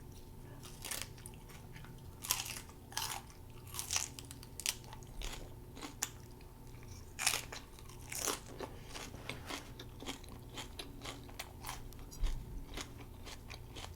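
Close-miked eating: crisp crunches and chewing, in irregular bites, from crunchy burger fillings such as lettuce.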